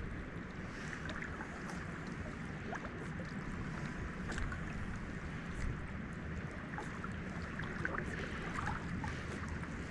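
Steady rushing of river water with some wind, and scattered faint light ticks over it.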